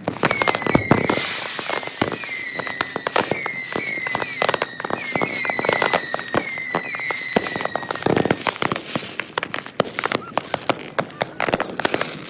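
Consumer fireworks going off in quick succession, a dense run of bangs and crackles sped up to three times normal speed. For the first two-thirds, short whistles repeat over the bangs, each dipping slightly in pitch.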